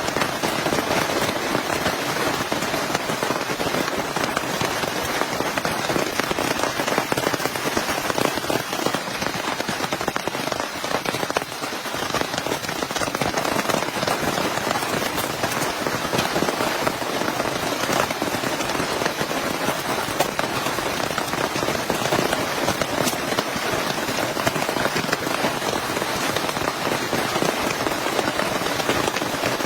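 Heavy rain falling steadily, a dense, even hiss of countless drops striking a surface.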